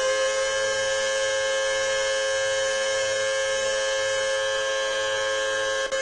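Outdoor tornado warning siren sounding during a test, holding one loud, steady tone.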